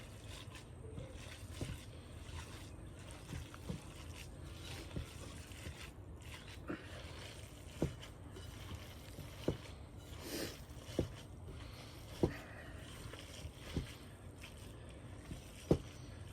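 Hands kneading a wet ground-meat mixture in a bowl: scattered short squelches and smacks, about one every second or so, over a steady low hum.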